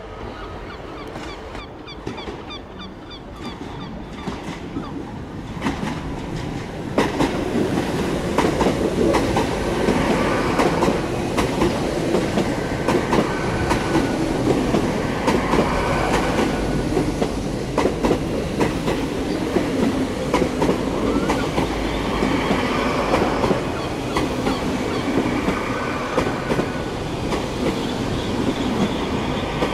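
A train rolling past close by, getting suddenly louder about seven seconds in, with a rapid clatter of wheels over rail joints and faint wheel squeal.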